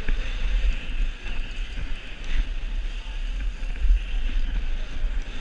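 Wind buffeting a helmet-mounted camera's microphone while a BMX bike is raced around a dirt track: an uneven low rumble with a steady hiss above it.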